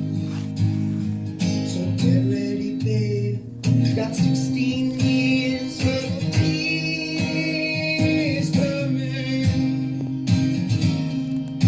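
A young male singer performing a song live, accompanied by a strummed guitar.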